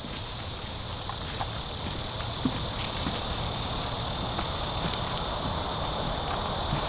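Steady high-pitched drone of insects over a low outdoor rumble that grows slowly louder, with a few faint scattered clicks.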